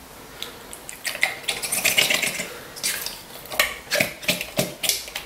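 Kitchen clatter as a small glass jar packed with raw pork chunks is shaken and knocked to empty it for weighing: a run of irregular knocks and clicks.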